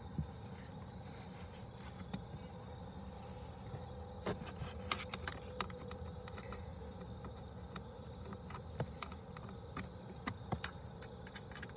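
Small scattered clicks and taps of an Allen wrench turning a screw into a plastic under-dash cover panel as it is tightened, over a faint steady hum.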